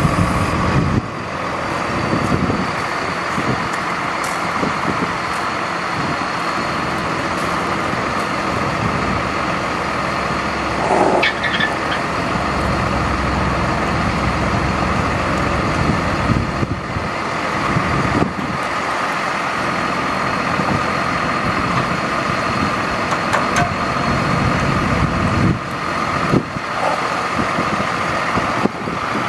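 Ford F-Series mechanics truck's engine running steadily to power the hydraulics of its National N80 crane while the boom is worked, with a steady high whine over the engine's sound. A few brief clunks come partway through and near the end.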